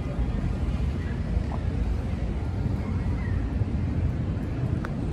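Wind buffeting the microphone: a steady low rumble, with a faint click near the end.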